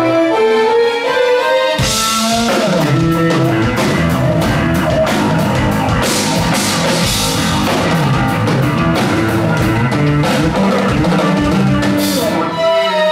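Progressive rock band playing live: sustained string-like chords, then drums, bass and electric guitar come in about two seconds in. The band drops back to the sustained chords near the end.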